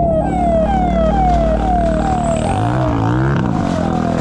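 Electronic siren in a fast yelp, a rising sweep repeated about three times a second, over a steady low vehicle engine hum.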